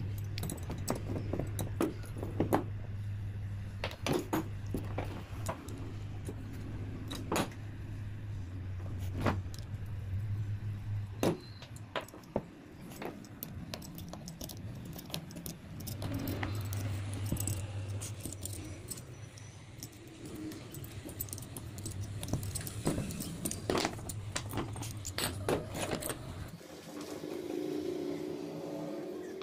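Metal hand tools and parts clicking and clinking as an angle grinder armature is taken apart by hand: a bearing puller and a screwdriver working at the armature's bearing and fan. A steady low hum runs underneath, dropping out for a few seconds near the middle and stopping near the end.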